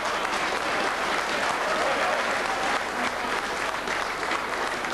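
Crowd of football supporters applauding, a steady dense clapping.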